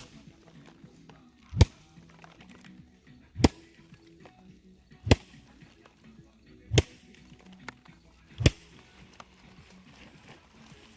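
Six sharp, loud strikes at an even pace, about one every second and a half to two seconds, like something being beaten or chopped hard in a steady work rhythm.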